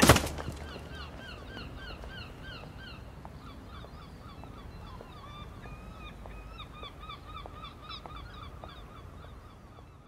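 A sudden loud hit at the very start, then a flock of birds calling: short calls that bend downward, about three a second, overlapping and slowly fading toward the end.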